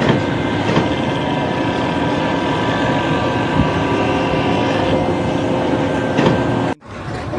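Machinery running steadily: a continuous noisy rumble with several steady whining tones through it, cutting off suddenly near the end.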